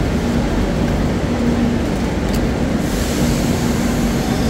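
Madrid Metro train standing at an underground platform, its equipment humming steadily under station noise, with a short click about two seconds in and a hiss that comes in at about three seconds.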